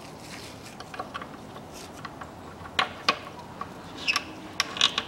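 Scattered small metallic clicks and taps as the drain plug is fitted by hand back into the Kia Sportage's automatic transmission oil pan and left only halfway in, the sharpest about three seconds in and a quick cluster near the end.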